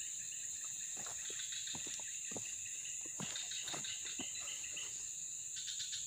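Steady high-pitched drone of insects, with a few faint scattered ticks.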